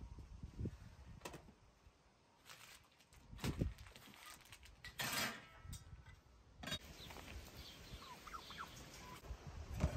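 Faint outdoor ambience with scattered knocks and rustles, and a few short bird chirps in the second half.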